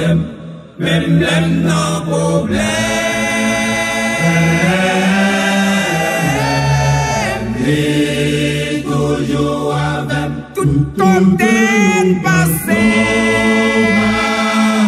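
Men's choir singing a hymn in multi-part harmony, holding long sustained chords that shift from phrase to phrase, with a brief break between phrases just after the start.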